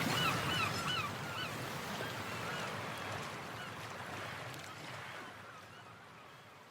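Birds calling in short, quick repeated cries over a steady hiss, most of the cries in the first second, the whole fading out toward the end.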